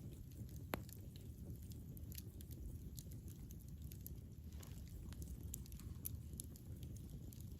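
Campfire burning: a steady low rumble of flames with scattered wood crackles and pops, two sharper pops near the start.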